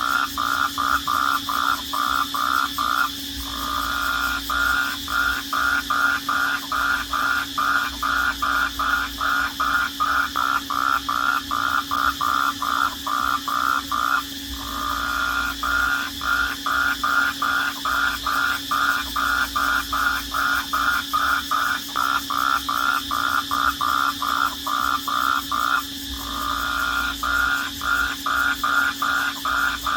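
Night chorus of calling animals: a loud, rhythmic pulsed call at about three pulses a second, which three times briefly gives way to a steady note before resuming, over a steady high-pitched trill.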